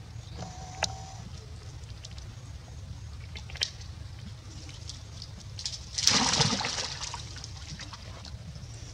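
Shallow stream water splashed as a baby macaque moves through it: a short splash of noise about six seconds in that fades over about a second, over a steady low rumble with a few small clicks.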